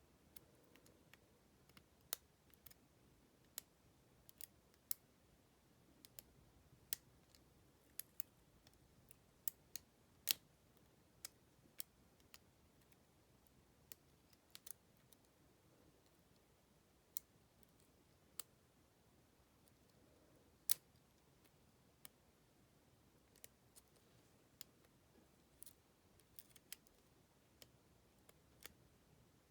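Faint, irregular metallic clicks of a lock pick working the pins of a Master Lock DG laminated brass padlock held under tension, about one or two clicks a second. Two louder clicks stand out, about ten seconds in and again around twenty seconds in.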